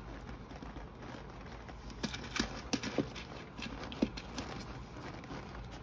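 A few light clicks and taps of a plastic jewellery box and plastic basket being handled: a quick cluster about two seconds in and a single tap about four seconds in.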